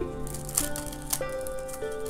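Background music with held notes that step in pitch, and light shaker-like percussion.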